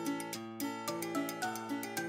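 Background music: a tune of plucked notes in a steady, even rhythm.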